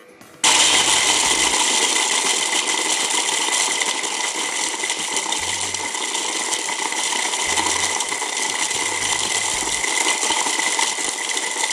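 MEGAWISE 800-watt immersion blender motor running in its chopper attachment, crushing large ice cubes to a powder. It starts suddenly about half a second in and runs steadily and loudly, with a high whine over the crushing noise.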